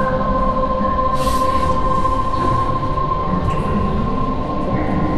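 A loud, steady rumbling drone with two high held tones whining over it, unbroken throughout, and a brief hissy swish about a second in.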